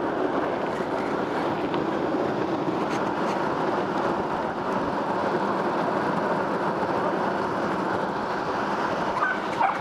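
Longboard urethane wheels (Abec 11 Centrax and Orangatang Kegels) rolling fast downhill on asphalt, a continuous even rolling rush.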